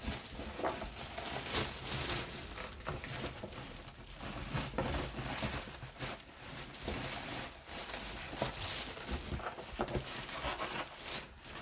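Packaging being handled while an air fryer is unboxed: irregular rustling and crinkling with scattered light knocks.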